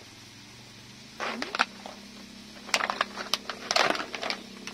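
Kitchen handling sounds: a few short bursts of rustling and clatter, such as pasta packets being handled. A steady low hum comes in about a second and a half in.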